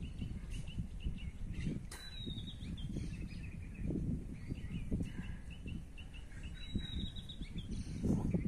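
Birds calling: runs of short, quickly repeated chirps and, twice, a longer falling whistle. Under them is a low, uneven rumble.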